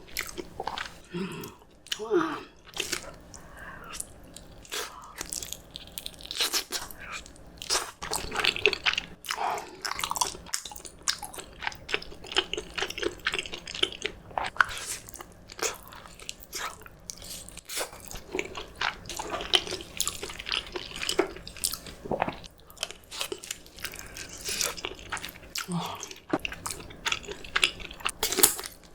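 Close-miked eating sounds: a person chewing and biting food, a steady run of wet smacks and short crunchy clicks.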